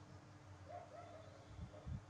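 Baby monkey giving faint, short squeaks, three in quick succession about a second in, with a couple of soft low knocks near the end.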